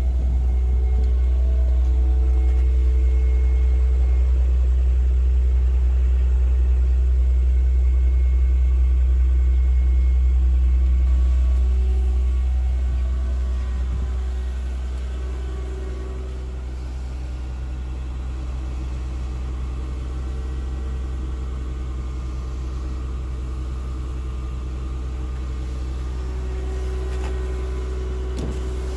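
Mercedes-Benz S280's 2.8-litre V6 running at idle on a cold engine, a steady low rumble that gets somewhat quieter about halfway through.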